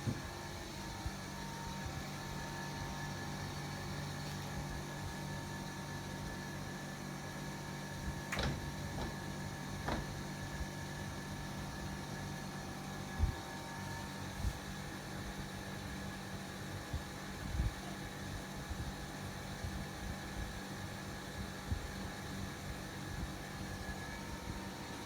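28-inch Sivicom mini ceiling fan running steadily: a constant motor hum with a faint higher whine above it, and two sharp clicks about a third of the way in.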